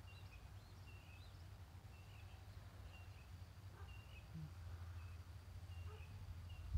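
Faint bird chirps, short and high, repeating about every half second over a low steady hum.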